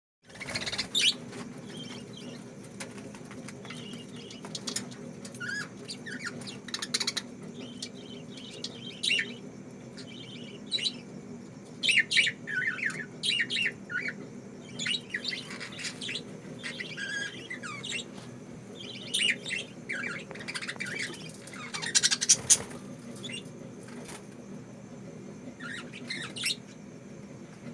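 Pet lovebirds chirping and squeaking in short, irregular bursts, with louder flurries now and then, over a steady low hum.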